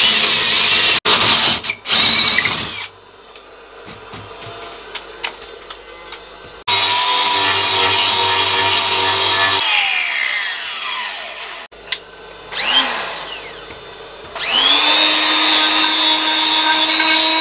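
Cordless drill boring a 20 mm hole into hard oak for the first few seconds. A few seconds later an angle grinder fitted with a wood-carving disc runs, then spins down with a falling whine. About two-thirds of the way through, another power tool motor spins up with a rising whine and runs at a steady high pitch.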